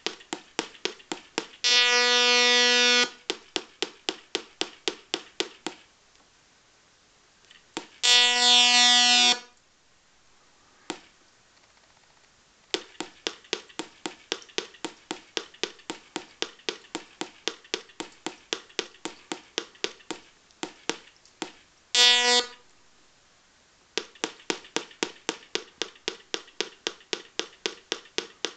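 Velleman MK170 LED star kit's electronic sound playing: quick strings of short beeps, about five a second, broken by three longer buzzy tones and a few pauses.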